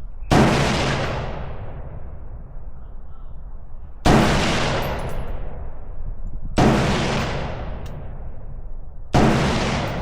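Four single gunshots from a newly built AR-pattern gun, fired a few seconds apart. Each crack is followed by an echo that fades over about a second and a half.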